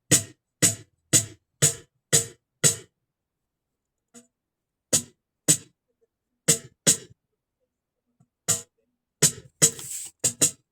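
Snare drum struck alone, six even hits about two a second, each with a short crack and wire buzz. After a pause come looser single and paired hits, with a longer, splashier stroke near the end.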